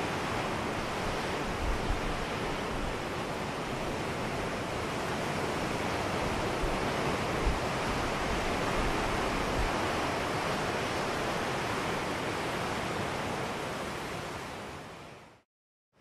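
Steady wash of ocean surf, swelling and easing slowly. It fades out shortly before the end into a moment of silence.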